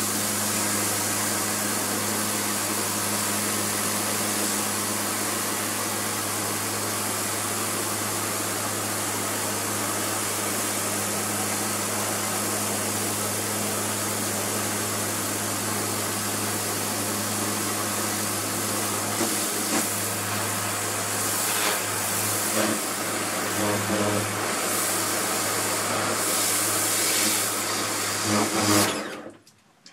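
Kärcher pressure washer running with a steady hum while its water jet hisses and spatters onto a plastic sun lounger. The spray sound grows more uneven over the last ten seconds, and everything cuts out briefly near the end.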